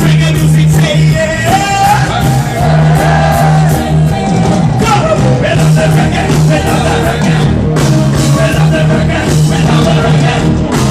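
Loud live reggae band music with a steady pulsing bass line and a voice singing over it.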